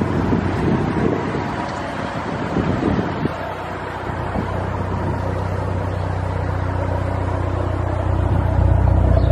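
Dodge SRT-4's turbocharged 2.4-litre four-cylinder idling with a steady hum, growing louder about eight seconds in.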